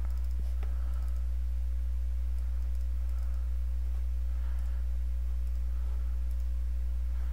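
Steady low electrical hum with a ladder of overtones, with a few faint mouse clicks while a file is picked in a dialog.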